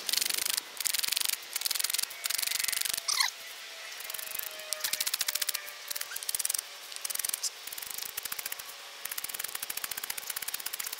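Ferro rod scraped hard and repeatedly with its striker, a series of short rasping strokes about one or two a second, with a brief lull partway through. Each stroke throws sparks at a birch bark and punky-wood tinder bundle that is not catching.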